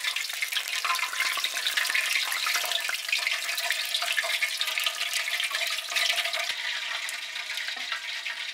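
Food frying in hot oil in a pan: a steady, dense sizzle and crackle.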